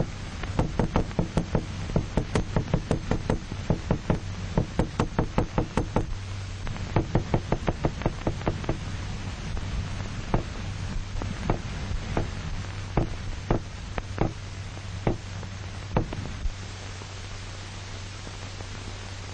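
Sharp knocking on a hard surface, used as a sound stimulus to show that the isolated dog's head reacts to noise. The knocks come several a second for about nine seconds, then slow to single, spaced knocks and stop a few seconds before the end.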